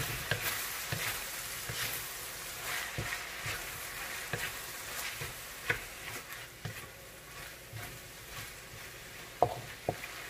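Mushrooms, shrimp and bell peppers sizzling in a metal wok while a wooden spatula stirs and scrapes them in irregular strokes, with two sharp knocks near the end.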